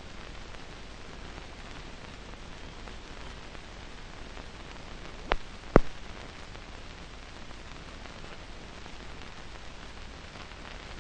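Steady hiss of an old recording's soundtrack, with two sharp clicks close together a little over five seconds in.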